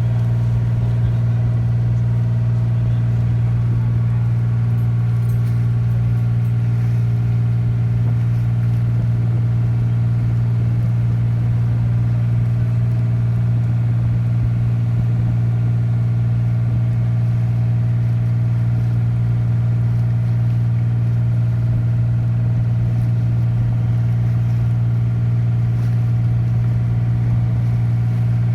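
Tender boat's engine running steadily at a constant pitch, a deep hum with a fuller tone layered above it.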